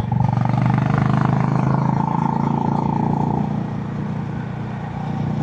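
Honda CB350 H'ness's air-cooled single-cylinder engine running on its stock exhaust, pulling under throttle, then easing off a little past halfway as the throttle is rolled back.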